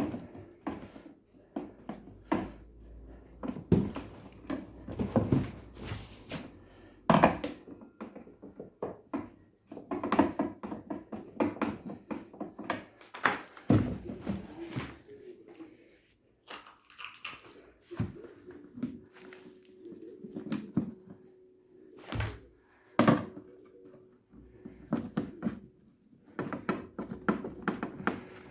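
Irregular knocks, clicks and rattles of a plastic washing-machine housing and its parts being handled and fastened back together with self-tapping screws. A faint steady hum comes and goes in the second half.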